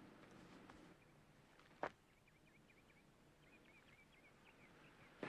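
Near silence, with faint, quick bird chirps in the background and a single sharp click just under two seconds in.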